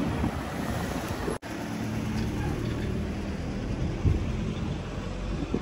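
Wind buffeting the phone's microphone outdoors, a steady low rumble with street noise under it, cutting out for an instant about a second and a half in.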